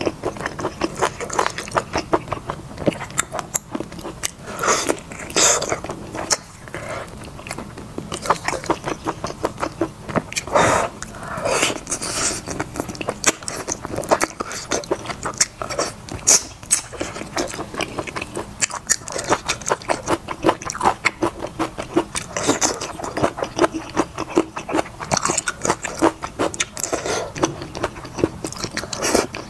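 Close-miked eating of braised big-plate chicken and noodles: wet chewing and biting in a dense stream of quick, crackly mouth clicks, with a few louder, longer bites and mouthfuls.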